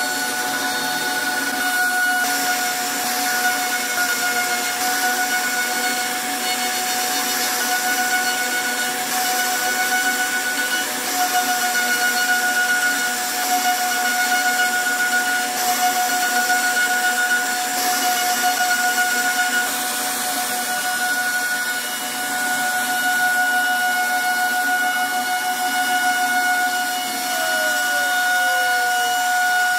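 CNC router spindle running with a steady high whine as its cutter carves patterns into a hardwood panel, with the hiss of the bit cutting the wood. Near the end a second, lower whine falls in pitch.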